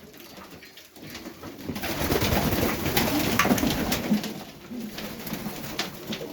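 Highflyer pigeons cooing in the loft, with a louder burst of rustling and clicking knocks from about two to four seconds in.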